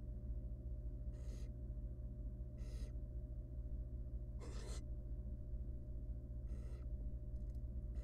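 Barn owl giving short raspy hissing calls, four of them about every one and a half to two seconds, the third the loudest, over a steady low hum.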